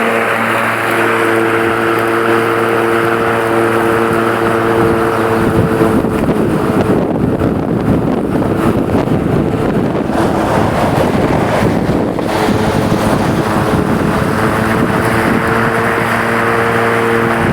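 Black and Decker electric lawn mower, converted to remote control, running with a steady hum as it mows tall grass. For several seconds in the middle the hum gives way to a louder rushing noise, then comes back.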